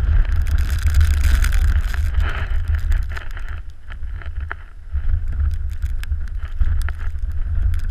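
Wind buffeting the camera microphone in a strong, gusty rumble that eases for about a second midway and then comes back, with scattered faint clicks.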